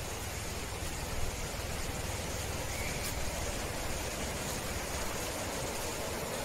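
Steady rushing of a flowing river, an even hiss with no breaks.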